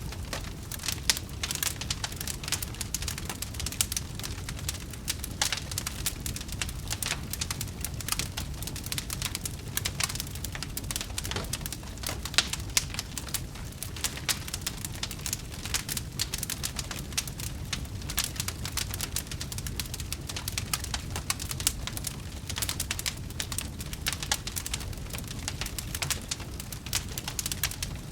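Wood fire in a fireplace crackling: dense, irregular pops and snaps over a steady low rumble of the flames.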